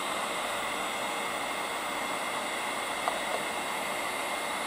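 Steady airflow hiss of a hot air plastic welding machine's blower running, with a faint click or two about three seconds in.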